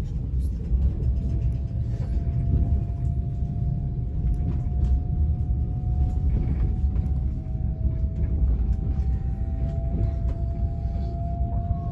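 Passenger train running, heard from inside the carriage: a steady low rumble with a thin whine that rises slowly in pitch, and a few faint clicks.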